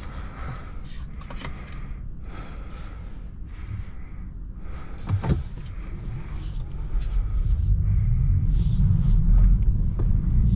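Low rumble inside the cabin of a Tesla Model 3 as it pulls away slowly over paving stones, the tyre noise growing louder from about two-thirds of the way through. A few light clicks and one sharper knock come before it.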